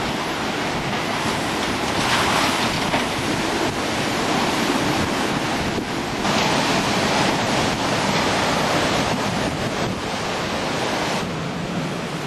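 Hurricane wind and rain: a dense, steady rush of wind noise buffeting the microphone, with a few abrupt changes in level.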